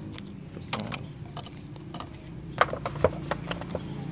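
Cardboard packaging and accessories being handled in a phone-tablet box insert: a handful of light taps and knocks, the sharpest about two and a half and three seconds in, over a steady low hum.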